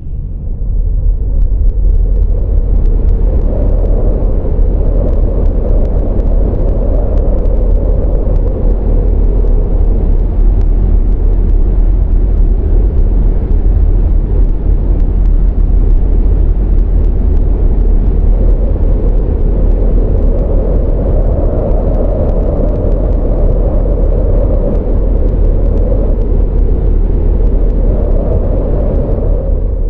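Loud, steady low roar of strong wind on the microphone during tornado footage. It swells twice, once a few seconds in and again in the second half.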